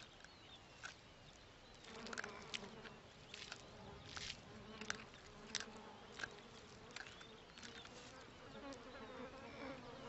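Flies buzzing around a wildebeest carcass: a faint, steady drone that comes in about two seconds in, with scattered soft clicks.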